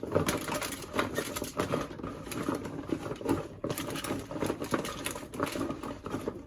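Food pieces being tossed and mixed by hand with seasoning in a bowl: an irregular run of small clicks, knocks and rustles.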